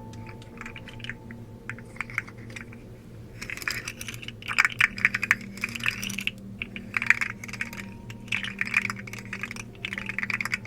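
Rapid light clicks and taps in quick runs, like fingers typing, sparse for the first few seconds and then dense and busier.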